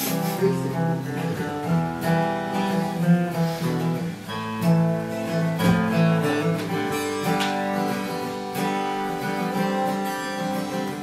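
Acoustic guitar strummed through an instrumental break between sung verses of a song, with chords changing about every second.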